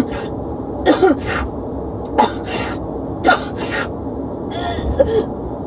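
A woman hyperventilating: rapid, sharp gasping breaths about once a second, most in quick in-and-out pairs with a short strained catch of voice, over the steady low hum of the moving patrol car.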